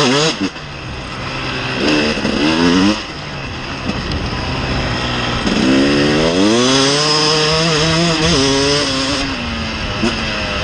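KTM 300 TPI single-cylinder two-stroke enduro engine revving up three times, the last rev long and held for a couple of seconds before easing off near the end.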